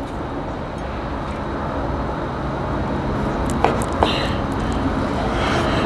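Steady low rumble of a vehicle's engine running, growing a little louder. Two light knife taps on a wooden cutting board come about three and a half and four seconds in as raw chicken is sliced.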